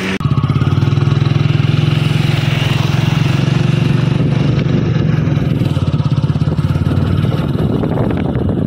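Motorcycle engine running steadily under way, heard close from the pillion seat. It cuts in abruptly just after the start.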